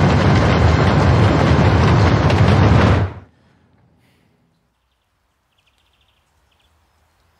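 Loud, dense rumbling noise from a cinematic intro sound effect, cutting off suddenly about three seconds in, then near silence.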